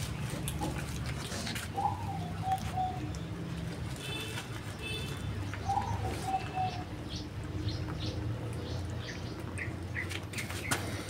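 A dove cooing twice, each call a short higher note stepping down into a few lower ones, with brief small-bird chirps between the calls. Under it, soft clicks of cats chewing and a steady low hum.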